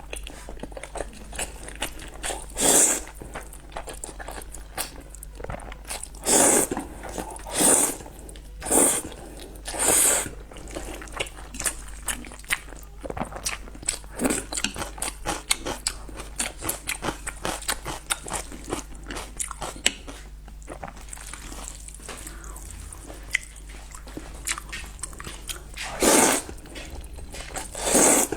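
Close-miked eating of spicy noodles: chewing with small wet clicks, broken by about seven loud, short slurps, bunched in the first ten seconds and twice more near the end.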